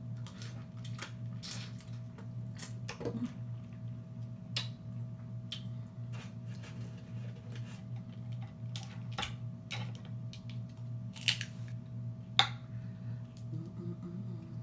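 Close-up eating sounds from a seafood boil meal: scattered sharp wet clicks and smacks of lips and chewing, with two louder snaps about three-quarters of the way through.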